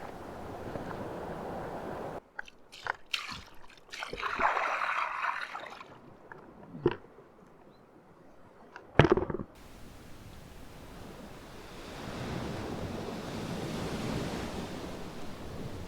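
Sea waves washing onto a beach, with a wave swelling up and falling away near the end. In the middle a few seconds of close handling noise take over: scattered clicks, a short rustle and one sharp knock.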